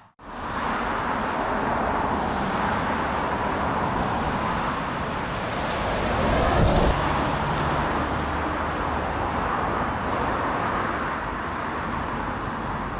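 A car on the move: steady road and tyre noise with a low rumble, growing louder about six or seven seconds in.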